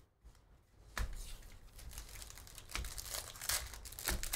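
A foil trading-card pack wrapper being torn open and crinkled, with irregular crackles and sharp ticks starting about a second in.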